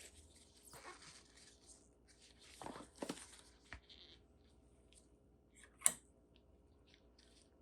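Smartphone retail packaging being handled and opened: rustling and crinkling in two spells, with small clicks and one sharp tap about six seconds in.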